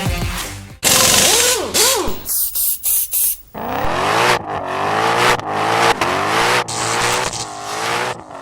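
Sports car engine revving hard and accelerating, its pitch climbing and dropping again and again as it shifts through the gears. Sudden loud bursts of noise sound in the first few seconds.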